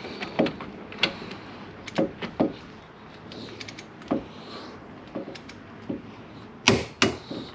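Scattered metallic clicks and clinks of hand tools on the brake caliper bracket bolts while they are being torqued down. The sharpest and loudest click comes near the end and fits a click-type torque wrench breaking over as the bolt reaches its set torque.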